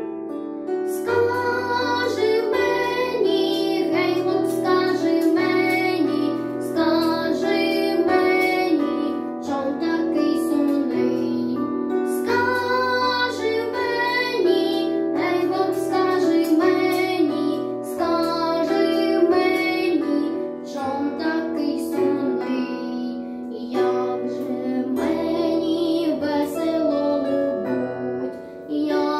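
A boy singing a Ukrainian song over an instrumental backing track, the sung melody carried over a stepping bass line.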